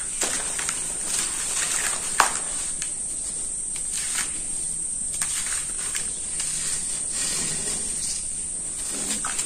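Dry sand-cement powder crumbling through bare hands and trickling into a metal pan: a steady gritty hiss with many small crackles, and one sharper click about two seconds in.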